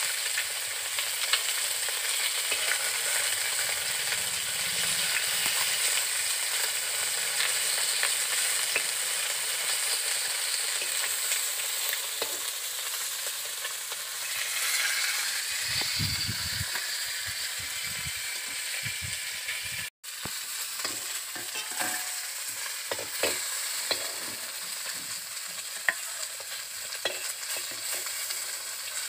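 Pieces of rohu fish frying in hot oil in a kadai, sizzling steadily, with a metal spatula scraping and clicking against the pan as the pieces are turned.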